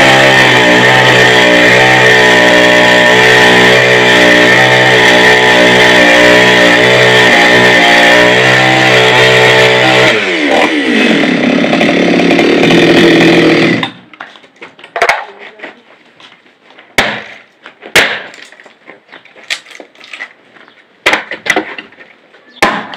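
Petrol chainsaw running at full throttle while cutting a log, a steady high engine note over the hiss of the chain in the wood. About ten seconds in the revs fall away, and the engine runs a few seconds more before stopping suddenly. Then a hatchet chops at the wood: sharp single knocks, one every second or two.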